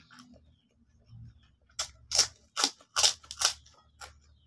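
Crisp krupuk crackers crunching, about six sharp crunches in quick succession in the second half.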